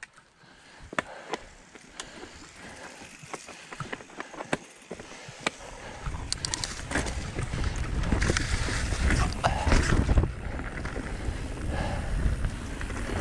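Mountain bike riding on a dirt singletrack, heard from the bike: scattered clicks and knocks at first, then from about six seconds in a louder steady rumble with rattles as the bike picks up speed.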